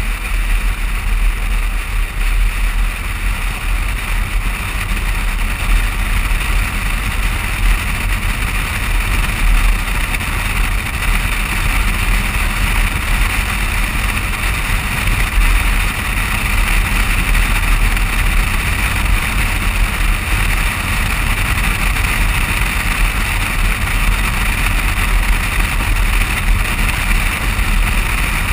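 Steady wind and road noise from a moving vehicle, heard by a camera mounted on the outside of the body: a deep rumble from air buffeting the camera and tyres on asphalt, under an even hiss.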